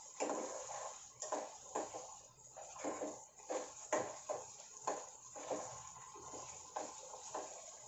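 A steel ladle stirring and scraping thick masala paste as it fries in a nonstick pan. The scrapes come in a run of short strokes, about two a second, over a faint sizzle.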